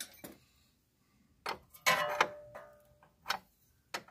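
Steel spanners clinking: a few sharp clicks and clanks as an open-end wrench is picked out and set onto a brake hose fitting. The loudest clank, about two seconds in, rings briefly.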